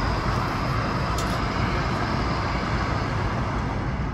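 Steady cabin noise inside an Airbus A220-100 standing at the gate: a constant rush of air over a low hum.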